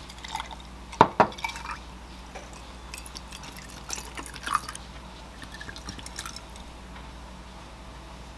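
A stemmed glass of ice cubes set down on a counter with two sharp clinks about a second in. Then almond milk is poured from a carton over the ice, with light splashing and ice cubes clicking against the glass.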